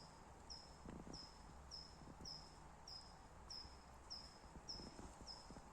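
A high, thin chirp that falls slightly in pitch, repeated at an even pace of nearly two a second, over faint forest background.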